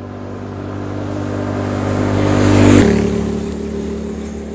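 Yamaha Tenere 700's parallel-twin engine, fitted with an Akrapovic header and Scorpion slip-on full exhaust, riding past at speed. Its steady exhaust note grows louder as it approaches, peaks nearly three seconds in, then drops in pitch as the bike passes and fades away.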